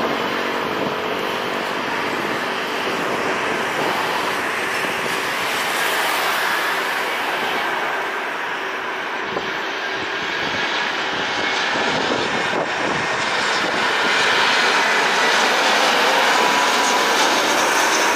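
Airbus A320 jet engines: a steady rushing noise from an airliner on low final approach, growing somewhat louder in the last few seconds as an A320 lifts off the runway at takeoff power.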